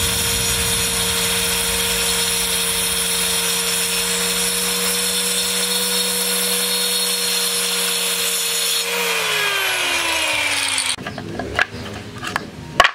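Stanley handheld circular saw running at a steady pitch as its blade cuts through plywood. About nine seconds in it is switched off, and its whine falls as the blade spins down. A few short knocks follow near the end.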